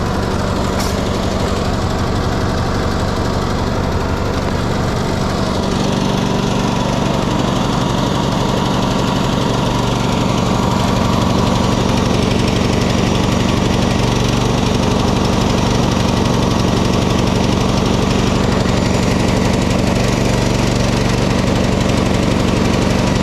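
Small gasoline engine of a homemade portable battery charger running steadily.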